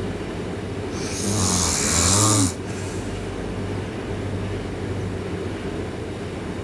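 A sleeping girl snoring: one loud snore from about a second in, lasting about a second and a half, a hissing breath over a low buzz that cuts off sharply. A steady low hum runs underneath.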